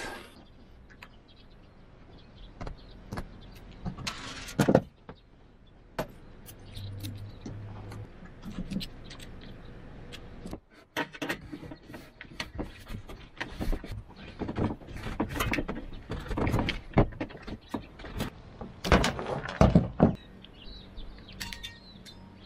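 Scattered clicks, clinks and knocks of hand tools and metal fittings being handled and tightened.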